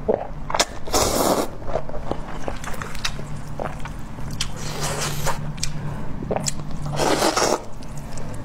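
A person slurping up mouthfuls of spicy noodles and chewing them, with many small wet clicks between. There are two longer slurps, about a second in and again near the end.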